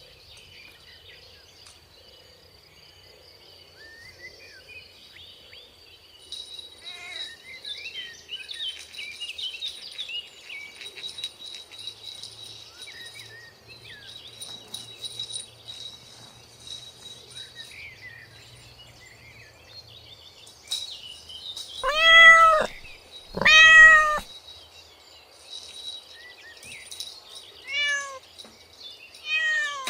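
Cat meowing: two loud drawn-out meows about two-thirds of the way in, then two shorter ones near the end. Behind them runs a steady high cricket trill with scattered bird chirps.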